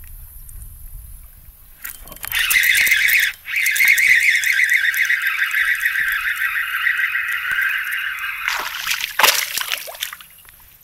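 Fishing reel whirring steadily for several seconds as line is wound in, then water splashing as a hooked bass thrashes and jumps at the surface near the end.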